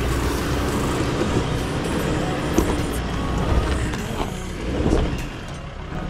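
Motor vehicle driving: steady engine and road noise with a low rumble.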